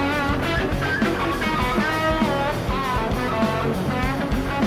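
Background rock music with a bluesy electric guitar lead, bending notes over a steady bass and beat.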